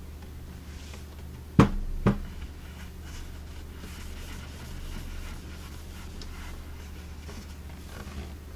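Two sharp knocks about half a second apart as the wooden radio cabinet is handled and bumps on the desk, then soft rubbing of a cloth over the waxed wood finish, over a steady low hum.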